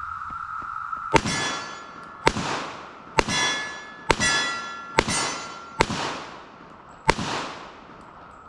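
Pistol fired seven times in an uneven string, roughly a shot a second, each shot trailing off in echo, several followed by a brief metallic ring.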